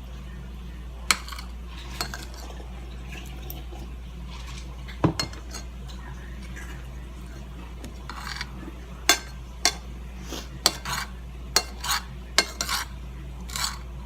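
Cutlery clinking and scraping against a plate while eating: sharp clinks about a second in, at two and five seconds, then a quick run of them in the last six seconds.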